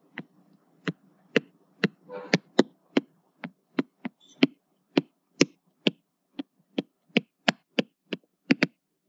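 Stylus tapping and clicking on a tablet screen while handwriting: a string of sharp clicks, roughly two to three a second at an uneven pace, as the pen strikes and lifts at each stroke.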